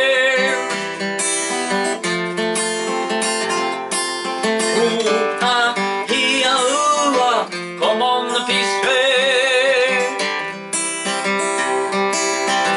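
Steel-string acoustic guitar strummed in a steady rhythm, with a man's voice singing long, wavering held notes over it three times.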